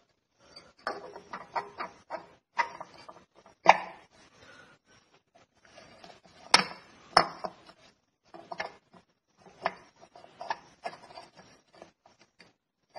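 Irregular light metallic clicks and knocks as a transmission's low and reverse brake piston is worked by hand down into its cylinder in the aluminium case, with a few sharper knocks around the middle.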